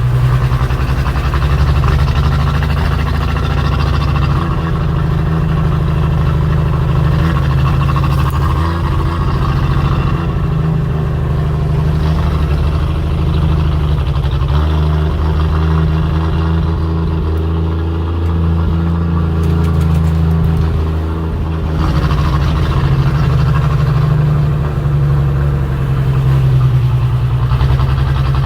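A motor vehicle's engine running steadily with a deep hum, its note shifting about halfway through and again later on.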